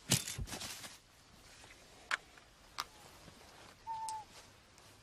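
A sudden noisy rush lasting about a second as the radio-fired eagle trap springs, then two sharp clicks. Near the end comes a short bird call held on one pitch that dips at its close.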